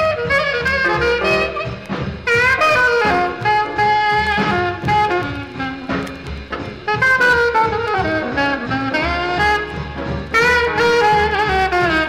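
Old swing-era jazz record: saxophone and brass horns playing melodic lines over a rhythm section.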